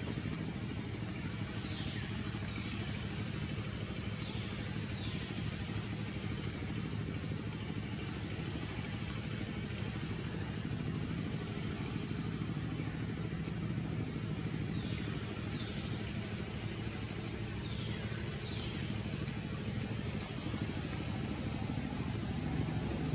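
Steady low engine hum, like a motor running at a distance, with faint short high chirps heard in pairs a few times.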